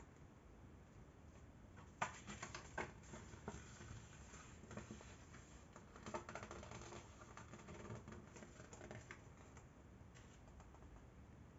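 A fold-out CD booklet's glossy paper being unfolded and handled: quiet crinkling and rustling with small sharp clicks, loudest about two seconds in and again around six seconds, settling down near the end.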